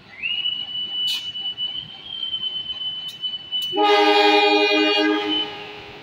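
A diesel locomotive's air horn gives one loud, low blast lasting under two seconds, about two-thirds of the way in. A steady high-pitched squeal runs under it for most of the clip.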